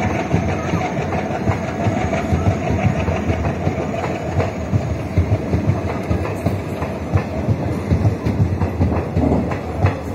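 Passenger coaches of an express train running past at speed: a continuous rumble with the clickety-clack of wheels over the rail joints.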